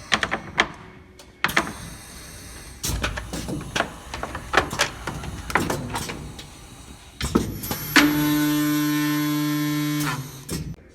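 Aluma RONDO 4000 corner cleaning machine for welded window-frame corners working through its cycle: a run of sharp mechanical clicks and knocks, then about eight seconds in a steady pitched motor whine for some two seconds that cuts off.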